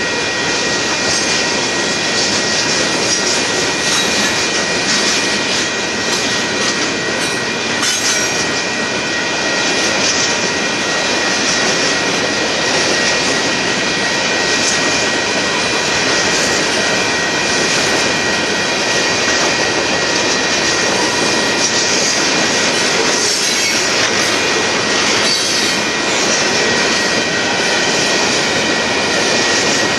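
Freight cars of a Union Pacific merchandise train rolling steadily past, a continuous rumble and rattle of wheels on rail. A steady high-pitched wheel squeal runs over it.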